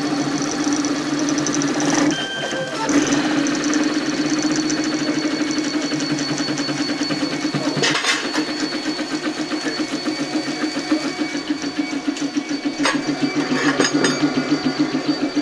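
High-speed 3D printer running a fast print, its stepper motors buzzing steadily as the print head darts back and forth, set for up to 850 mm/s and 70,000 mm/s² acceleration. A fast pulsing beat of about four a second builds in the last few seconds.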